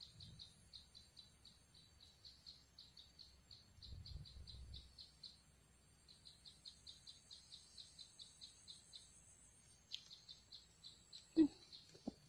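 Insects chirping: even, high chirps at about six a second in long runs with short breaks, over a thin steady high buzz. A click comes about ten seconds in, and a sharper knock, the loudest sound, comes near the end.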